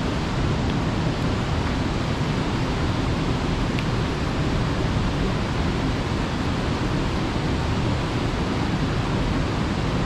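Fast mountain-stream water rushing steadily, a loud, even roar of moving water.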